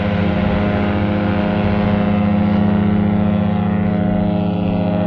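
Cruise ship's horn sounding one long, steady, deep blast at a single pitch.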